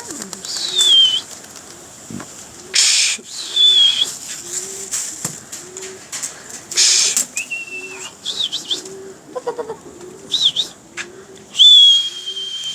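Domestic pigeons cooing, short low coos repeating about once a second. High falling whistled calls come in between, along with a few brief rustles.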